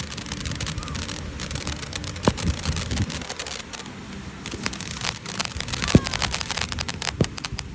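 Artificial volcano erupting: a steady hissing, spattering rush like heavy rain, studded with sharp crackles and a few louder pops, one about two seconds in and one about six seconds in.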